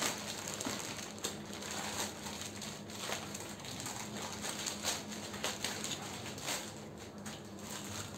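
Plastic courier mailer bag being pulled open and handled: irregular rustling and crinkling with small sharp crackles. Near the end a clear plastic packet is lifted out.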